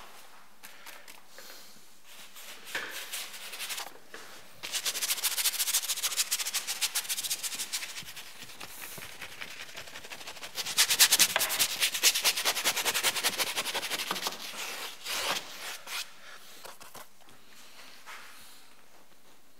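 Paintbrush scrubbing across a canvas in rapid back-and-forth strokes, in two long spells with a pause between them; the second spell is the louder.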